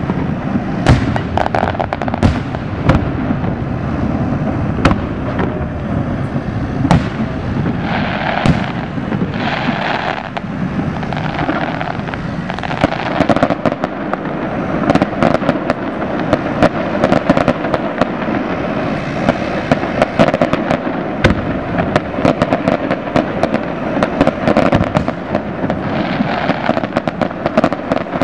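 Aerial fireworks display: a rapid, unbroken string of bangs and crackling bursts, many close together.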